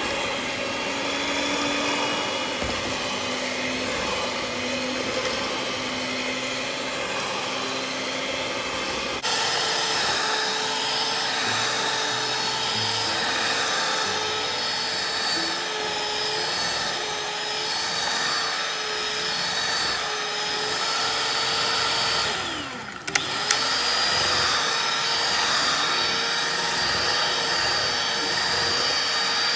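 Philips electric hand mixer running with dough hooks, kneading a thick gluten-free bread dough. About nine seconds in its pitch and level step up; a little over three quarters of the way through it briefly drops in pitch and level, then comes back up to speed.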